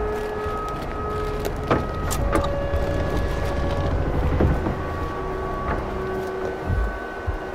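Slow underscore of long held notes that shift to new pitches every couple of seconds, over a low rumble, with a few knocks about two seconds in as the coffin in the hearse is handled.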